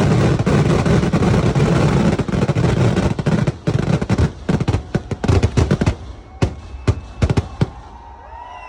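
Fireworks barrage: a dense rapid string of firecracker bangs merging into one continuous crackling roar, which breaks up about halfway into separate sharp bangs that thin out and die away near the end.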